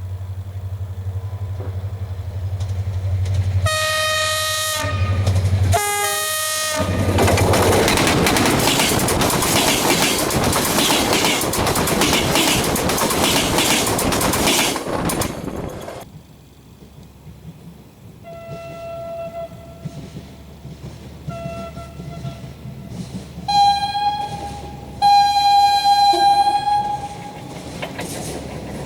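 A train sounding its horn: a low steady rumble, then two short horn blasts, then several seconds of loud rushing rail noise as it runs past. After that it grows quieter, with more horn toots and one long horn blast near the end.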